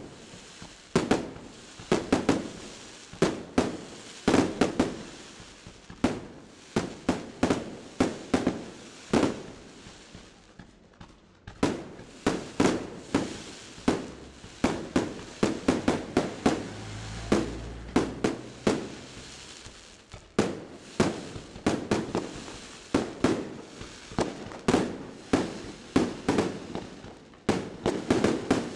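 Maltese festa aerial firework shells bursting in a rapid, irregular barrage of sharp bangs, several a second, with a brief lull about ten seconds in.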